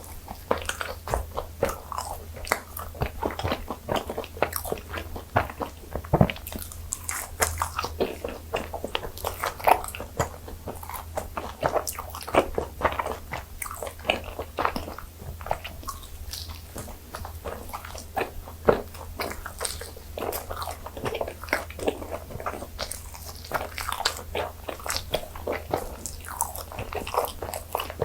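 Close-miked biting and chewing of butter-fried gijeong-tteok (Korean makgeolli-fermented rice cakes): a dense, irregular run of short sharp bites, smacks and sticky chews.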